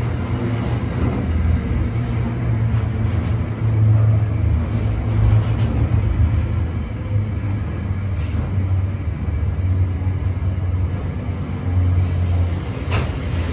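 Container wagons of a freight train rolling past at close range: a steady, deep rolling noise of wheels on the rails, with a few light clicks.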